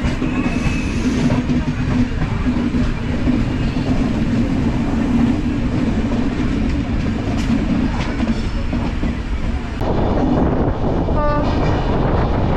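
Passenger train noise: a steady low hum over rumbling running noise. About ten seconds in the sound changes abruptly, and soon after comes a brief horn toot.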